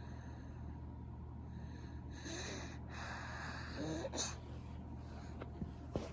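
A sleeping baby's noisy breathing: two breaths about two and four seconds in, each with a faint squeaky note. Two sharp clicks come near the end, over a steady low hum.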